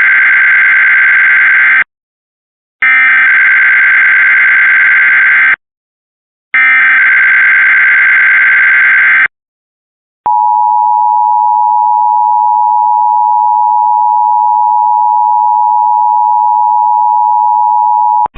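Emergency Alert System test: the last of three loud, screechy SAME header data bursts, each about three seconds long with short gaps between them. About a second after the third burst, the two-tone EAS attention signal (853 and 960 Hz) sounds steadily for about eight seconds and cuts off at the end.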